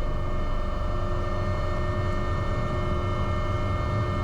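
AW189 helicopter's turbine engines and rotor running at take-off power as it lifts off and climbs, heard from the cockpit: a steady low rumble with several steady whining tones above it.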